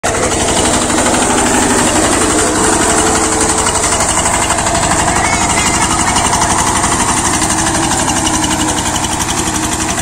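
Walk-behind power tiller's engine running steadily under load, a rapid, even chugging, as it churns through a flooded rice paddy.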